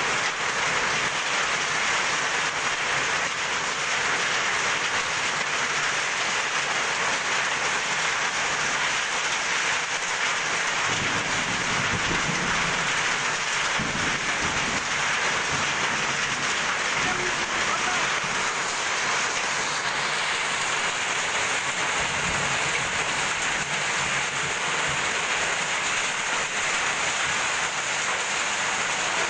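Hail and heavy rain pelting a corrugated metal roof: a dense, steady clatter, with low rumbles about eleven seconds in and again a little past twenty seconds.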